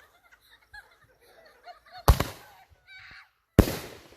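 Two loud firework bangs about a second and a half apart, each sharp report trailing off quickly.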